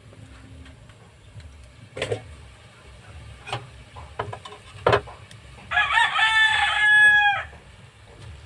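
A rooster crowing once, one long call of under two seconds about six seconds in, the loudest sound here. A few short sharp knocks come before it.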